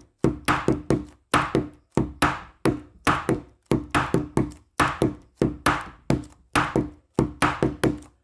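Background music: short, clipped notes in a steady, quick rhythm, about three to four a second, each dying away fast.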